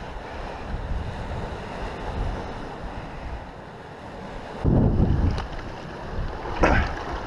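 Wind buffeting the microphone over the wash of the sea on the rocks, with a strong gust about five seconds in and a couple of sharp knocks near the end.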